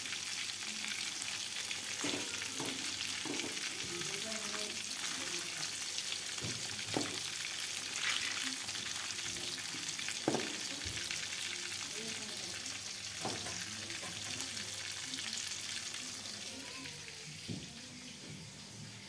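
Fish frying in hot oil in an aluminium wok, a steady sizzle, with the metal spatula scraping and knocking against the pan every few seconds. The sizzle grows fainter near the end.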